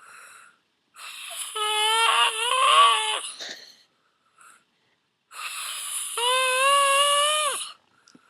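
A man snoring: two long, high-pitched, whining snores of about two seconds each, each with a breathy hiss. The first snore wavers in pitch and the second holds steadier, with short quiet gaps between breaths.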